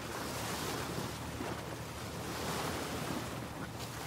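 Wind buffeting the microphone over the wash of the sea: a steady rushing noise that swells and eases every second or so.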